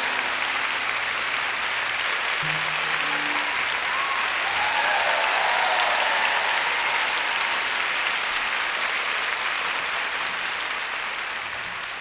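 A concert-hall audience applauding steadily, the clapping swelling midway and slowly dying down near the end. A couple of short, low, held notes from the band sound under it in the first few seconds.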